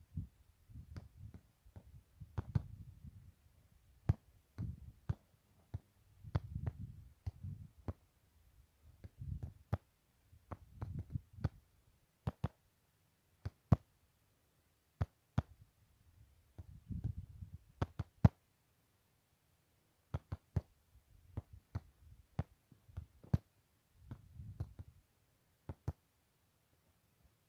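Wind buffeting the microphone in short low rumbling gusts, with many irregular sharp clicks and crackles.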